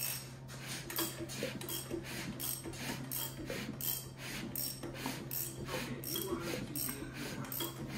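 Ratchet wrench clicking in a steady run of clicks, about three a second, as a Gen V 454 big-block Chevy is turned over by hand through a full revolution of the crankshaft.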